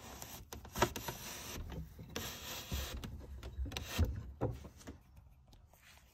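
Pets Imperial wooden chicken coop being shut up: wood rubbing and scraping as its door is handled, with a few sharp knocks, the clearest about a second in and about four seconds in.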